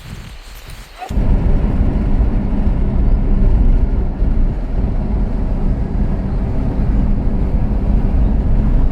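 Steady, loud low rumbling noise that cuts in suddenly about a second in, after faint outdoor ambience with birds.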